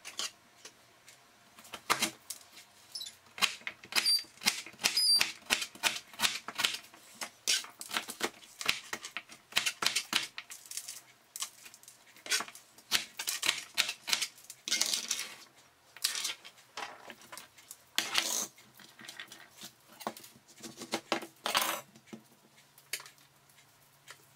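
Crinkle-cut (wavy-bladed) knife chopping peeled celeriac into small cubes on a plastic cutting board: quick, irregular knife strikes on the board, with a few longer scraping strokes.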